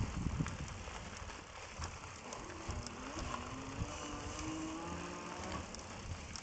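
Lectric electric bike riding over a packed-dirt trail: tyres rolling with light rattles and clicks, and a faint motor whine that rises in pitch through the middle.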